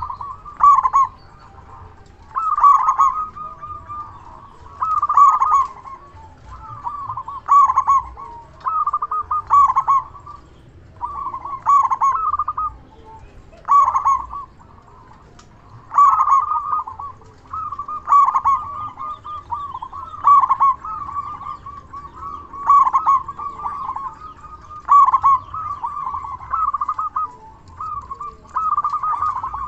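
Zebra dove (perkutut) cooing, repeating its short trilled song phrase about every two seconds.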